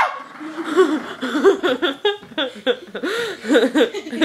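High-pitched giggling: a quick run of short laughs that rise and fall, one after another.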